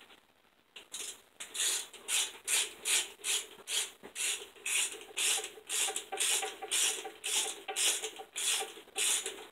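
Hand ratchet clicking in quick back-and-forth strokes, about two and a half a second, starting about a second in, as bolts on a Dodge 318/360 V8 cylinder head are run down.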